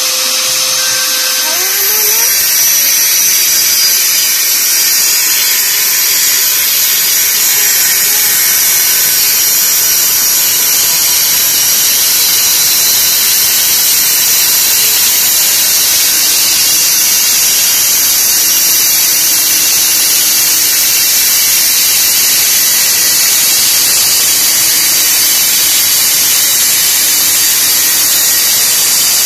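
Angle grinder with a cut-off disc cutting through steel angle bar: a loud, steady, high-pitched grinding hiss that gets louder about two seconds in as the disc bites into the metal.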